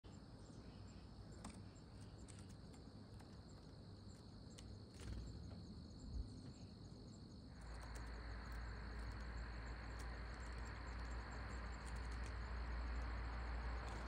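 Faint insect chorus of crickets: a steady high trill with a fast, evenly pulsed chirping above it. A soft rushing noise comes in about halfway through.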